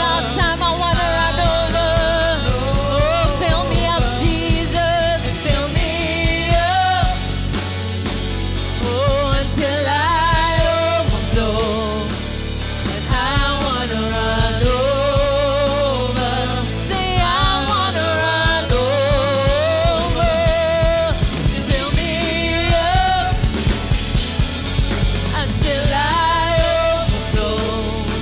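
Gospel worship song: a singing voice carrying a wavering melody over a drum kit and steady bass.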